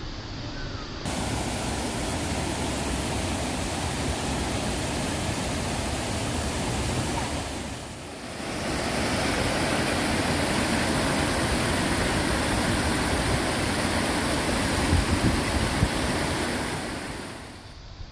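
Rushing water of a mountain valley stream and waterfall, a steady full rush that dips briefly about eight seconds in.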